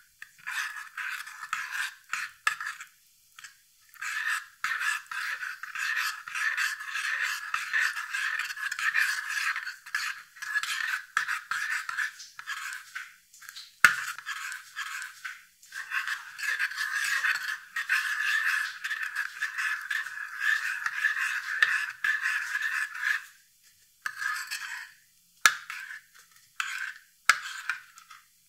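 Metal spoon stirring an oil and spice mixture in a ceramic bowl, scraping round the bowl in quick continuous strokes with short pauses. There is a sharp clink of spoon on bowl about halfway through and two more near the end.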